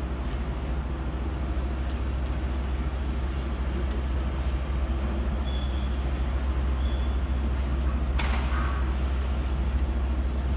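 Steady low engine rumble with a short hiss about eight seconds in.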